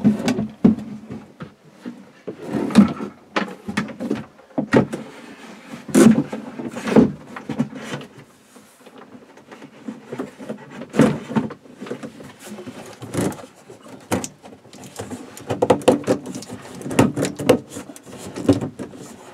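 Plastic battery box being worked down into its compartment: irregular knocks, bumps and scrapes of plastic against the surrounding panels, coming in clusters and thickest near the end.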